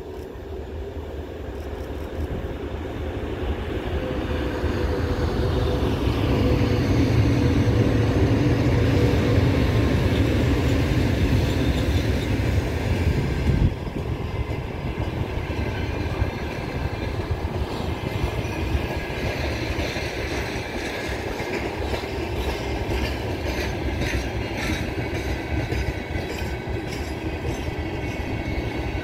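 Two-section 2TE116 diesel-electric locomotive passing close by with its diesel engines running, building to its loudest about a third of the way in. Then a long train of flat wagons rolls past, wheels clicking rhythmically over the rail joints.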